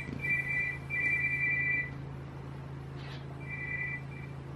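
Electronic two-tone ringing: a pair of high steady tones in pulses, two short and one about a second long, then after a pause two shorter ones, over a steady low hum.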